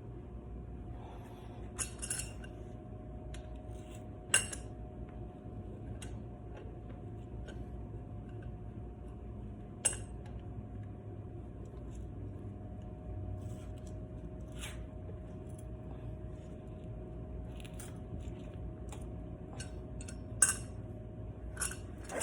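Scattered light metallic clinks and taps of tools or parts being handled, a few sharper knocks among them, over a steady hum.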